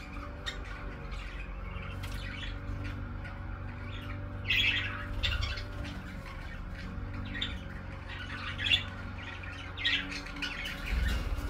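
Budgerigars chirping and squawking in short, sharp calls, louder about halfway through and again near the end, over a low steady hum.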